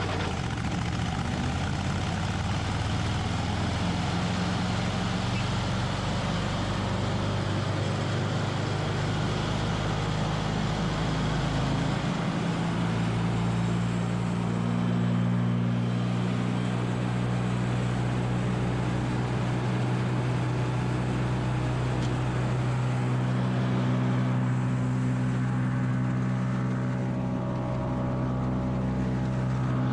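Vermeer BC600XL wood chipper's engine running steadily as brush is fed through it, with a noisy chipping haze over the engine note. The engine note steps up in pitch about twelve seconds in.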